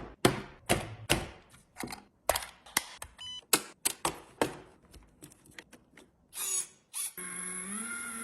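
Sharp plastic clicks and knocks, roughly two a second, as a toy car and its packaging are handled. About seven seconds in, a steady humming tone starts and steps up slightly in pitch.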